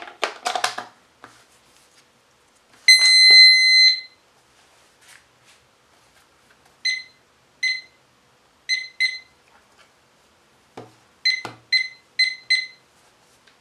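Digital bedside alarm clock beeping: one long beep of about a second, then eight short beeps in ones, pairs and a quick run of four as its buttons are pressed. A few plastic clicks of handling come early on and near the end.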